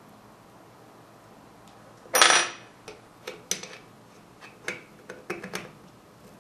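Small metal carburettor parts and tools knocking on a workbench: one loud metallic clatter with a short ring about two seconds in, then a run of lighter metal clicks and taps.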